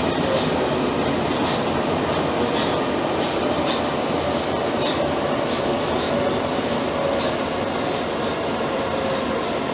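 Paris Métro MP 73 rubber-tyred train running along the line: a steady, loud rolling noise with sharp clicks at irregular spacing and a faint steady whine underneath.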